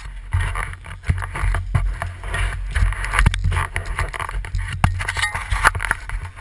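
Handling noise from an action camera being fitted to a helmet: rustling and scraping with many sharp knocks, over a low rumble.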